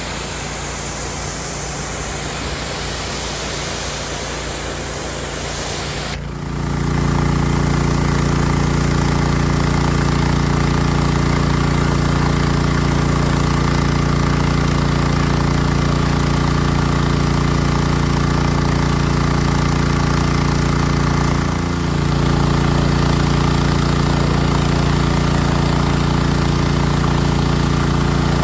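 Gas-engine pressure washer running: at first mostly the hiss of the water spray, then from about six seconds in the engine's steady hum comes up louder, with a brief dip a few seconds before the end.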